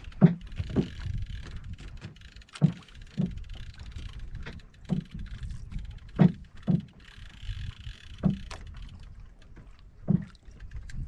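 Water slapping against the wooden hull of a small outrigger boat, heard as irregular short thuds, often in pairs, over wind rumble on the microphone.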